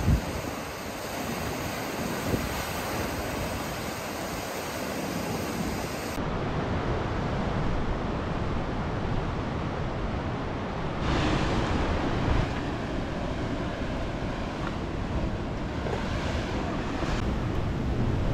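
Sea surf washing over shore rocks, a steady rushing of water with wind buffeting the microphone. The surf swells louder about eleven seconds in. A short loud thump comes right at the start.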